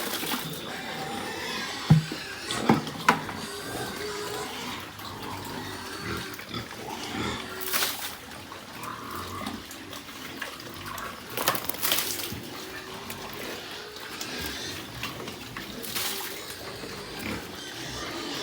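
Pigs calling, with loud bursts every four seconds or so and three sharp knocks about two to three seconds in.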